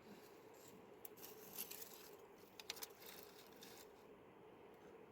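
Near silence with a faint steady hum, broken between about one and four seconds in by a few soft rustles and clicks of something being handled.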